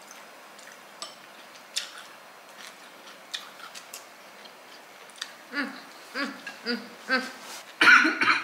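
Eating crispy fried fish by hand: small scattered crunches and clicks of chewing and fingers on the plate. In the last few seconds come a few short hummed voice sounds and a louder voiced sound near the end.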